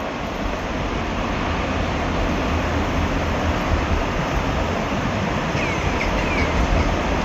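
A steady rumbling noise that slowly grows louder, with a few faint, short high squeaks near the end.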